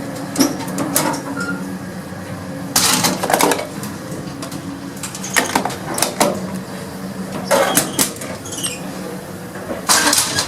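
Old gated express lift running, its variable-frequency drive giving a steady low hum, with irregular clanks and rattles about every one to two seconds.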